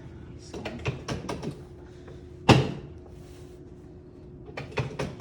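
Chiropractic drop table's drop section falling with one loud clack about two and a half seconds in, under the doctor's adjusting thrust. A few lighter clicks and knocks come before it and again near the end.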